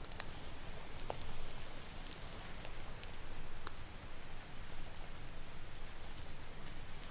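Campfire crackling, with scattered sharp pops, over a steady wash of ocean surf.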